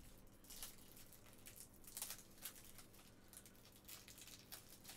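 Near silence with faint, scattered rustles and ticks of hands handling a trading card in its plastic holder.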